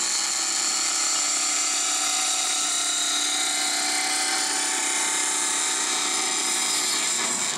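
Vertical metal-cutting band saw running with its blade in a sheet-metal plate, sawing through it: a steady, high whine made of many ringing tones, easing off slightly just before the end.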